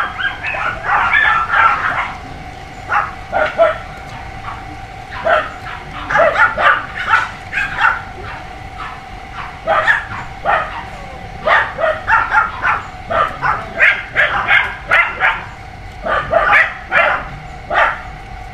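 A crate of young dachshund puppies whimpering and yipping, with many short high cries overlapping in quick clusters.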